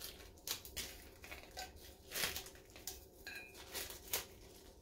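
Faint handling noises of glitter-coated adhesive vinyl being pressed and smoothed onto a tumbler by hand: soft rustles and several light ticks spread across the few seconds.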